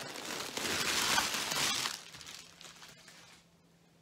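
Plastic mailer bag crinkling and rustling as a dress is pulled out of it, for about two seconds, then dying away.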